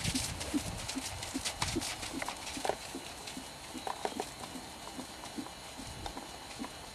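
Hoofbeats of a chestnut horse trotting on a loose arena surface, an even two-beat rhythm of soft thuds. They grow fainter toward the end as the horse moves away.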